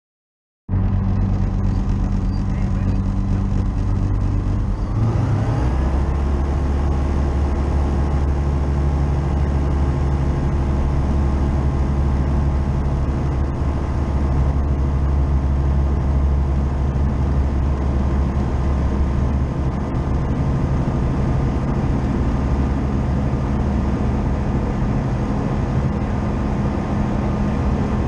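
Light aircraft engine, a Tecnam P2002 JF's Rotax 912, turning its propeller. It starts abruptly, then about five seconds in the pitch rises as it comes up to full takeoff power. It then runs steadily through the takeoff roll.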